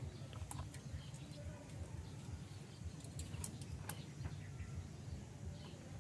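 Faint bird calls, a few short scattered chirps, over a low steady rumble.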